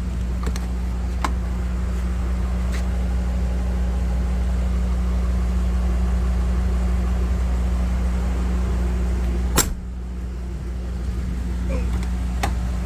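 Steady low mechanical hum from running machinery. A single sharp knock comes about three-quarters of the way through, after which the hum is a little quieter.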